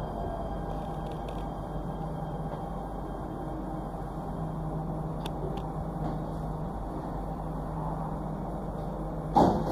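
Steady rumble and hum of an MRT Jakarta train running between stations, heard from inside the car. A short loud bump comes near the end.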